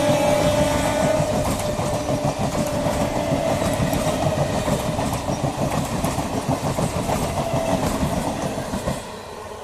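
Suburban EMU local train running past on the track, wheels clattering over the rail joints with a steady motor tone, dying away near the end as it moves off.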